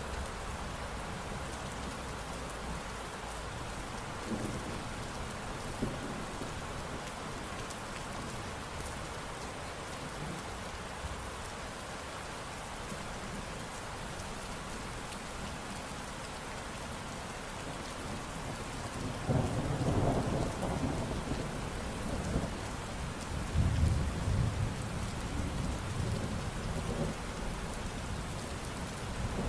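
Steady rain falling, with thunder rumbling in low and loud from about two-thirds of the way through.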